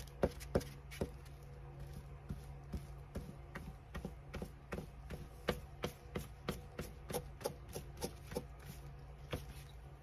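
Irregular light taps and clicks of papers and craft pieces being handled and set down on a tabletop, over a steady low hum.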